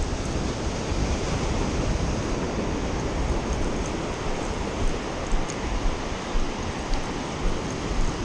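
Surf breaking and washing up a sandy beach, with wind buffeting the microphone in gusts.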